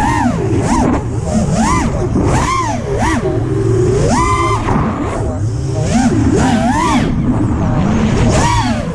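FPV quadcopter's brushless motors and propellers whining, the pitch swooping up and down over and over as the throttle is punched and cut, with a short held high pitch about four seconds in.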